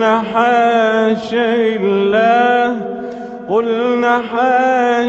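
A man chanting Quranic recitation in melodic tajwid style, holding long ornamented notes. A new phrase begins with a rising onset about three and a half seconds in.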